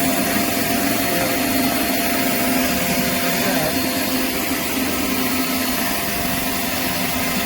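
Pressure washer running steadily, its high-pressure water jet hissing as it blasts a stain off concrete, with a constant motor hum underneath.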